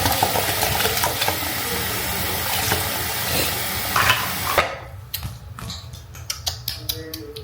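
Tap water running into a sink, shut off suddenly about four and a half seconds in, followed by a few light clicks and knocks.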